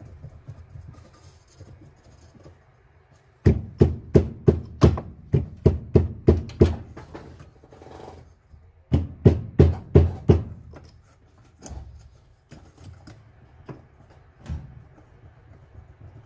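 Two runs of quick, sharp knocks, about four a second, as a replacement washer motor fan is worked and knocked down onto the motor shaft.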